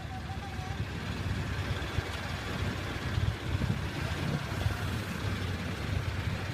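Heavy vehicle's engine running steadily, a low drone.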